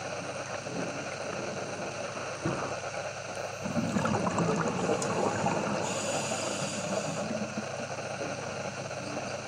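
Underwater ambience recorded by a camera in its housing: a steady rush of water and low rumbling that grows louder about four seconds in, with a brief high hiss around six seconds in.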